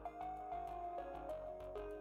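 Background music: a melody of held notes that step from one pitch to the next, over a light, evenly spaced beat.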